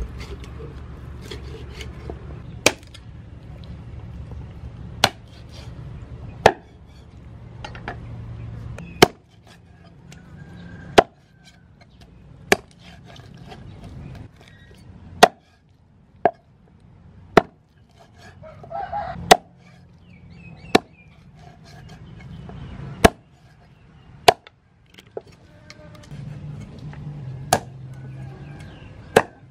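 Cleaver chopping through raw chicken onto a thick wooden chopping block: about sixteen sharp single strikes, one every second or two.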